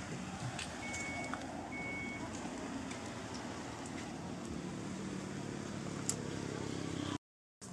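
A motor vehicle running close by, its low engine note growing stronger in the second half. There are two short high electronic beeps about a second and two seconds in, and the sound cuts off suddenly near the end.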